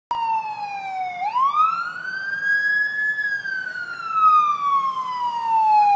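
Emergency vehicle siren wailing in a slow rise and fall: the pitch sinks, climbs sharply about a second in to a peak near the middle, then sinks slowly again.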